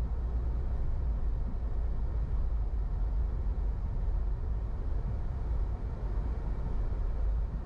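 Steady low rumble of a car driving along a city street: engine and tyre noise with no distinct events.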